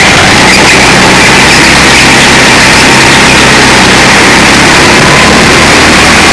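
Go-kart engine running hard through a corner and along a straight, heard from a camera mounted on the kart; the sound is steady and loud enough to clip.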